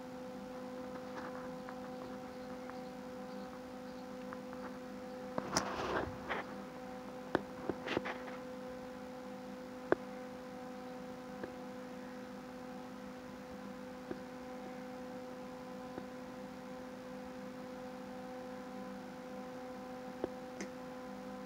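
A steady low hum runs throughout. Over it come a few brief soft rustles and scuffs of a kitten rolling on carpet, clustered about five to eight seconds in, with a single click or two later.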